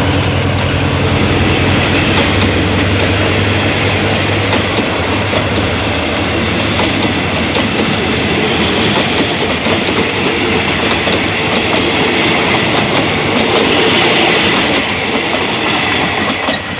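Passenger coaches of a Thai express train rolling past close by at speed, a loud steady rush of wheel and rail noise. The diesel locomotive's engine drone, just gone by, fades away in the first few seconds.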